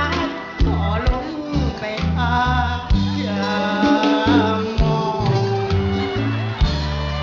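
A singer performing into a microphone over a live band, with a repeating bass line and regular drum hits.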